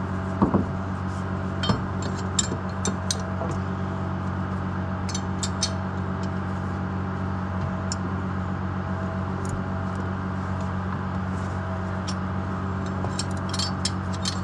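An engine idling steadily, with scattered light metallic clinks and taps of tools on metal and a few louder knocks near the start.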